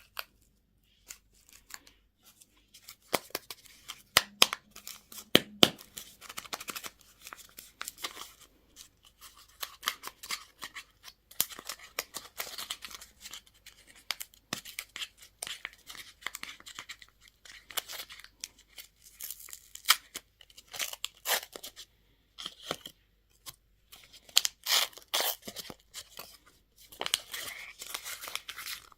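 Candy and toy packaging being torn open and crinkled: a steady run of irregular crackles, rips and rustles.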